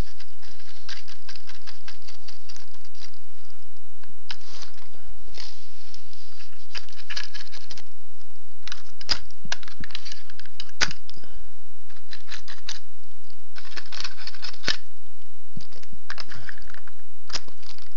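Close-up scratchy rubbing and light clicks at irregular intervals: paint being dabbed and scrubbed onto a plastic model locomotive shell, and the model handled on a desk.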